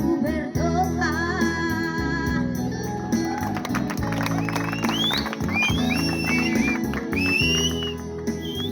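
Music: a song with a singing voice over a steady bass accompaniment, with high gliding melody notes in the second half.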